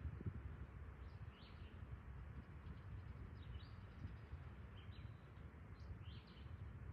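Songbirds chirping, several short high calls scattered through, over a low steady rumble of freight cars rolling past in the distance.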